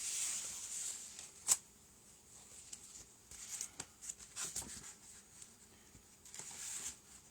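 Faint handling noises of small parts and packaging: soft rustles and light clicks, with one sharp click about a second and a half in.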